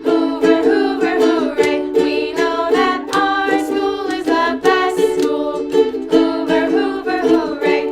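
Music: the school song sung by voices over a strummed string instrument, with strum strokes at a regular beat.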